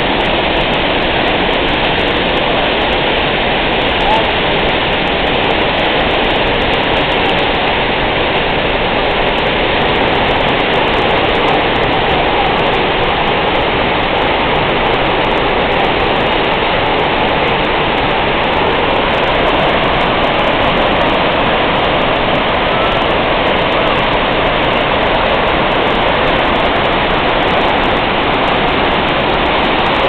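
Zongo Falls, a large waterfall dropping about 65 m onto rocks, rushing with a steady, dense roar of falling water.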